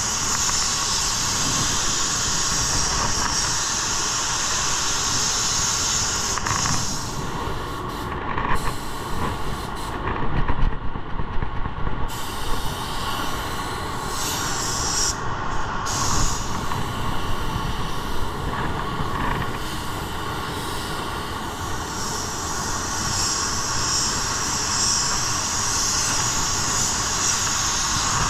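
Paint spray gun hissing as it lays a coat of metallic basecoat, over a steady low rumble. The hiss stops about a quarter of the way in, comes back briefly in the middle, and returns steadily for the last several seconds, as the trigger is released and pulled between passes.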